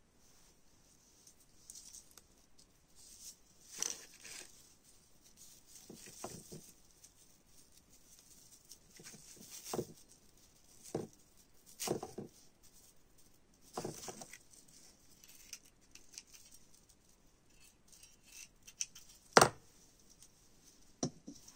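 Handling noises from satin ribbon and a clear plastic ornament ball being worked by hand: scattered soft rustles and light taps every second or two, with one sharper knock near the end.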